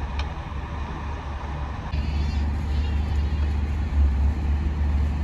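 Steady low rumble of a moving vehicle heard from inside. About two seconds in, a short high, wavering child's cry or squeal.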